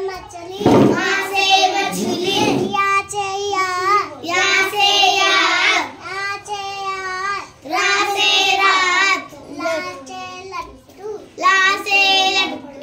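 A child singing in a high voice, a string of short sung phrases with held, wavering notes. There is a dull thump about a second in and another a second and a half later.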